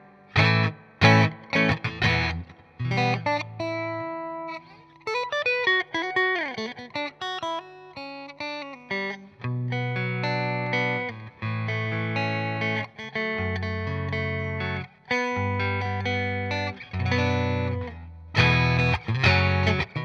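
Electric guitar played through a Fender '65 Deluxe Reverb amplifier, miked with a Shure SM58: short chord stabs, then single notes with string bends a few seconds in, then longer held strummed chords.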